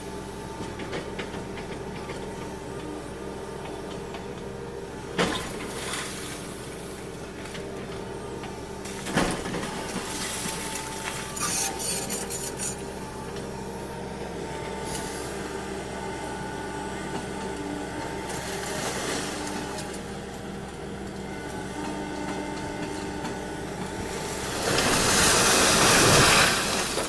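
Heavy machinery running steadily with a constant engine hum, a couple of sharp knocks and clanks, and a loud rushing, hissing surge about two seconds long near the end.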